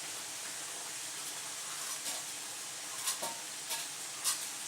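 Minced-beef chopped steaks sizzling steadily in oil in a frying pan, with several sharp knife taps on a cutting board in the second half as a bell pepper is cut.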